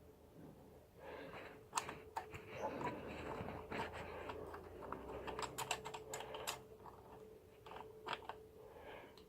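Light clicks and clinks of Triumph Tiger 800 clutch plates being drawn off the clutch hub and set down one by one, with a cluster of quick clicks in the middle.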